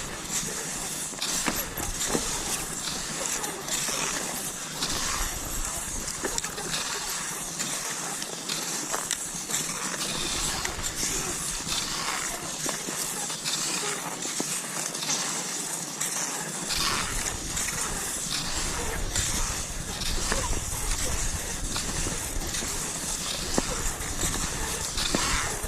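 Cross-country skis swishing and scraping over snow: a steady hiss broken by many small, irregular crunches.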